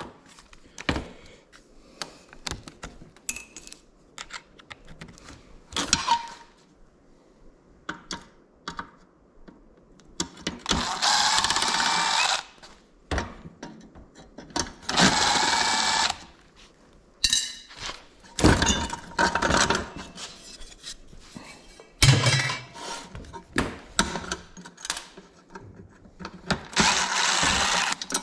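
A handheld power tool runs in short bursts of a second or two, several times. Between the bursts come sharp metal clanks and knocks of parts being handled.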